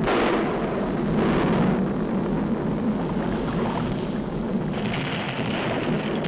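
Cartoon sound effect of an erupting volcano: a steady, heavy rumbling roar, with a hissing layer joining about five seconds in.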